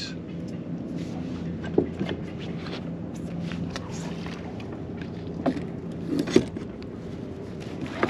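Steady low hum with scattered small clicks and knocks of rod, reel and gear on a fishing kayak as a small fish is reeled in; the sharpest knock comes about six seconds in.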